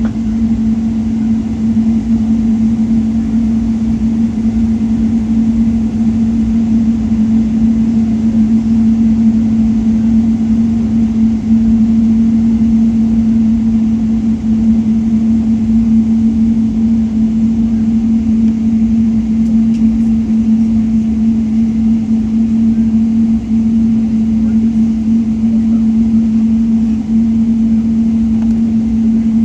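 Steady cabin noise inside a Boeing 777-300 taxiing after landing: engine and air-conditioning rumble under a constant low hum.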